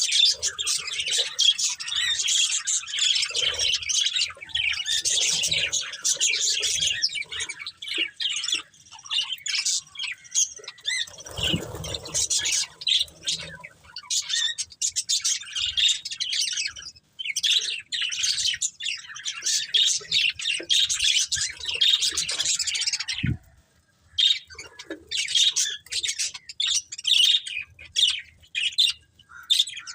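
Budgerigars chattering and chirping rapidly in long, busy bouts, with a brief pause about two-thirds of the way through.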